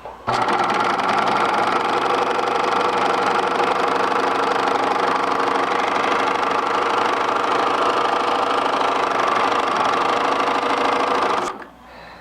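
Bernina 1005 sewing machine running at a steady speed on its foot pedal, starting abruptly just after the start and stopping abruptly about a second before the end.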